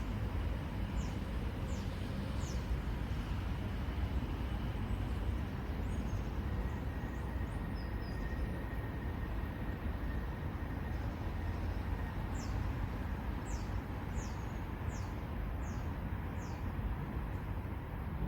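Steady low outdoor rumble with a small bird's thin, high calls: a few short falling notes near the start and a run of about six more falling notes about two-thirds of the way through.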